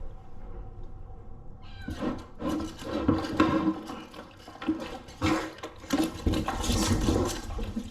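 Cats yowling in distress at being bathed, over running, splashing water that starts up about two seconds in.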